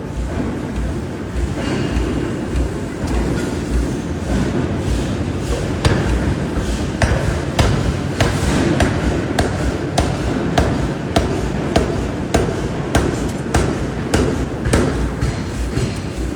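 Hammer blows on steel during forging, struck about one or two a second from about six seconds in, over a steady low rumble of shop machinery.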